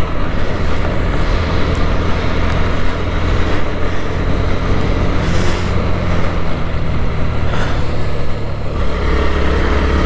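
Bajaj Pulsar NS160's single-cylinder engine running at steady road speed, with wind rushing over the microphone. The low engine note grows stronger near the end.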